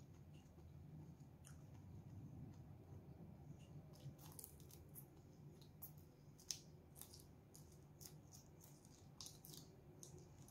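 Faint, crisp crunching and clicking of raw leafy greens being chewed, starting about four seconds in, over a low steady hum.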